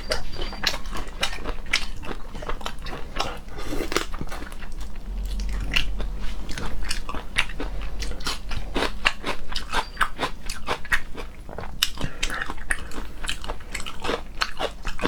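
Close-miked mukbang eating: a person biting into and chewing crunchy food, with a steady run of sharp crunches and wet mouth clicks.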